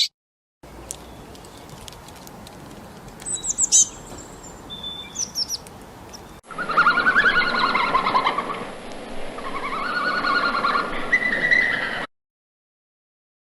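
Birds chirping and calling in two short recordings joined by an abrupt cut: first a few high, quickly falling chirps over background noise, then, about six seconds in, a louder run of repeated warbling calls that cuts off suddenly near the end.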